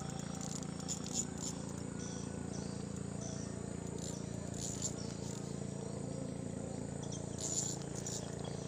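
Insects chirring faintly over a steady low hum, with a few brief soft high-pitched sounds.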